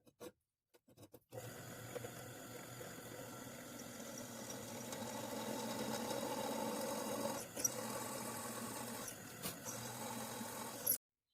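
Electric drill running steadily while boring holes through quarter-inch mild steel, after a few short clicks; it cuts off suddenly just before the end.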